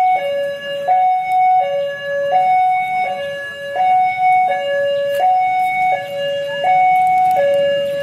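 Railway level-crossing warning alarm sounding: an electronic two-note signal that alternates evenly between a higher and a lower note, each held about two-thirds of a second. It signals that a train is approaching the crossing.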